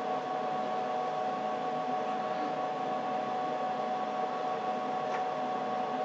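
Cooling fans of an HP 54845A Infiniium oscilloscope running steadily: an even whirr with a steady whine through it.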